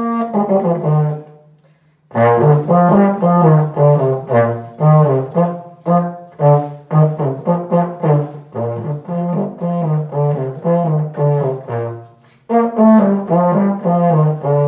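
Solo euphonium playing a lively melody of short, separate notes low in its range. There are two short breaks between phrases, about two seconds in and near the end.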